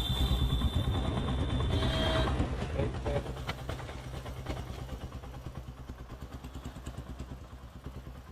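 A motorcycle engine running with a steady low rumble that slowly fades away.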